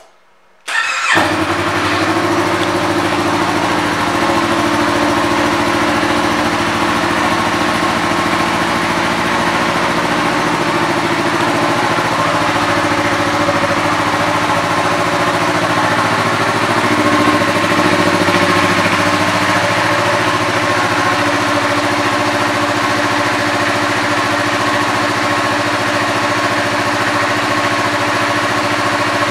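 2021 Yamaha MT-03's 321 cc parallel-twin engine, fitted with an aftermarket exhaust, starting about a second in and then idling steadily, a little louder for a couple of seconds past the middle.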